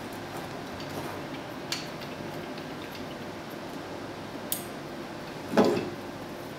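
Small metal clicks and taps as the parts of an Apex Pro–style clone knife sharpener are handled and fitted onto its upright metal post, with one louder knock about five and a half seconds in.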